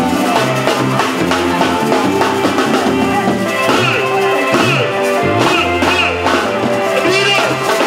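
Music with guitar, a bass line and drums, loud and continuous.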